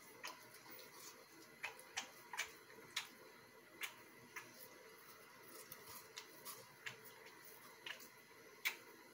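American Staffordshire Terrier puppy biting and chewing a watermelon rind held out by hand: irregular crisp crunching clicks, about fifteen of them, the loudest near the end.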